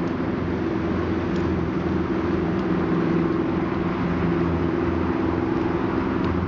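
Diesel engine of an inland cargo barge under way, a steady low drone that holds without change.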